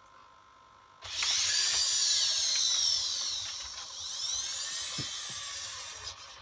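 Servo motors in a 3D-printed InMoov humanoid robot's shoulders and arms whining as the arms swing up and back, the whine gliding up and down in pitch. It starts about a second in, comes in two sweeps, and stops shortly before the end.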